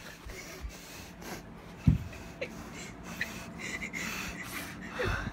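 Close breathing and snorting right at a phone microphone, with rubbing and handling noise and one sharp thump about two seconds in.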